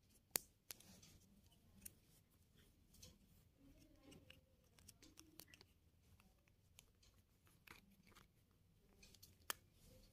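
Near silence with faint scattered clicks and rustles of handling, with a sharp click about half a second in and another near the end.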